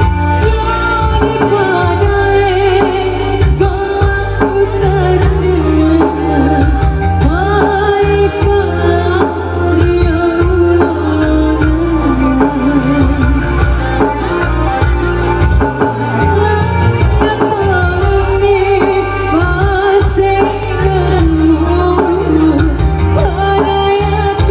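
Amplified band music with a sung melody over a heavy, steady bass.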